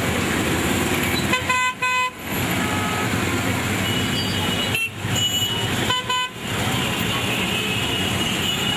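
Vehicle horns tooting in short beeps over steady traffic and engine noise from a convoy of small vans: a cluster of quick toots about one and a half seconds in, and another near the middle.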